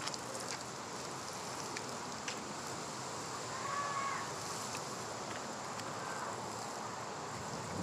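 Water pouring from the spout of a plastic watering can onto loose garden soil, a steady splashing stream.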